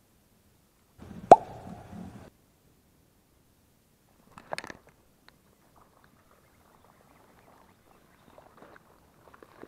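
A cast with a baitcasting rod and reel: a sharp snap about a second in, then the reel's spool whirring and falling in pitch for about a second before it stops. A short noise follows a couple of seconds later, then faint scattered rustling.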